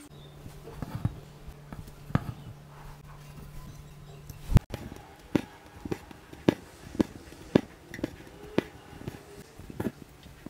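Embroidery needle punching through taut linen stretched in a hoop, making sharp taps about every half second in the second half as the white thread is stitched in. A steady low hum in the first half stops abruptly with a loud click near the middle.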